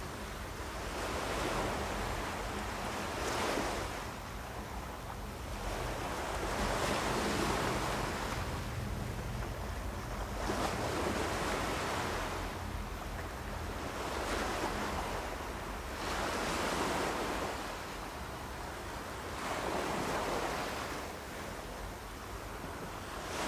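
Ocean surf: waves swelling and breaking, a new surge every two to four seconds.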